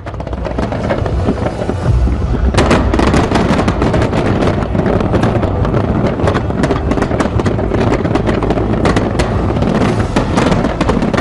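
Large fireworks display: a dense, continuous barrage of crackling and popping over a low rumble of booms, the crackle thickening about two and a half seconds in.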